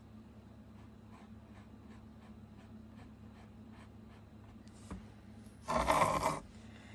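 Paintbrush strokes rubbing faintly across canvas, a few strokes a second. About six seconds in comes a short, loud scrape as the canvas is slid across the tabletop.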